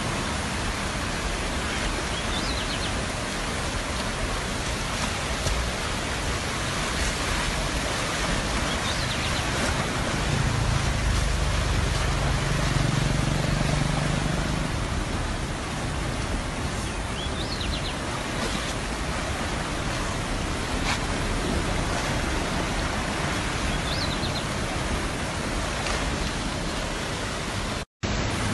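Steady rushing noise of fast-flowing floodwater. It cuts out for an instant near the end.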